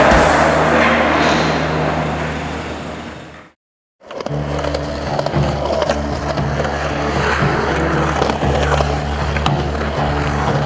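Soundtrack music fading out, a moment of silence, then another song starting about four seconds in. Skateboard wheels rolling on concrete and board clacks run under the music.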